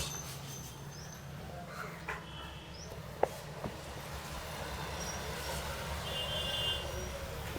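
Steady low rumble of street traffic, with one sharp snap about three seconds in.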